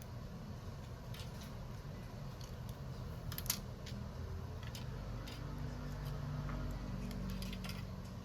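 Small sharp clicks and ticks of repair tools working on a smartphone's parts during a screen replacement, one louder click about three and a half seconds in, over a steady low hum.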